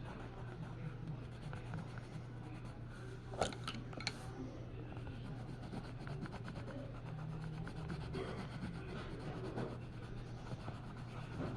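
Faint rubbing strokes of an art tool working on a surface, over a steady low hum, with three light clicks about three and a half to four seconds in.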